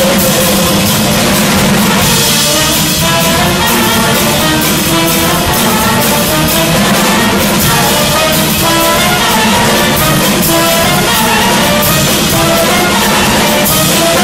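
Loud music with drums and several melodic instrument lines.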